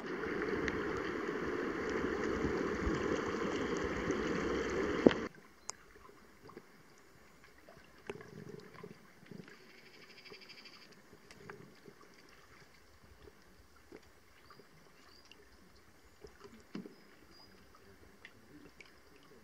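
Steady rush of flowing river water that cuts off abruptly about five seconds in. Then comes near-quiet calm water with only faint, scattered paddle splashes and knocks from an inflatable canoe.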